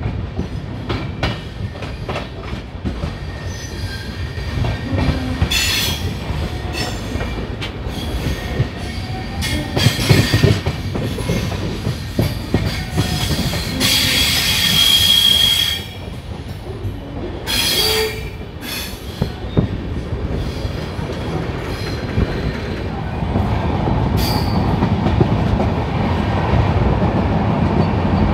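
Passenger train coaches pulling out of a station and gathering speed: the wheels clatter over rail joints and points, with short bursts of wheel squeal. The longest squeal comes about halfway through. The running noise grows louder near the end as the train speeds up.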